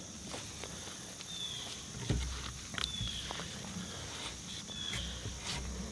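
Woodland ambience: a steady high-pitched insect drone with three short, slightly falling bird chirps. Soft clicks, rustles and low knocks come from cordage being woven around wooden poles, the loudest knock about two seconds in.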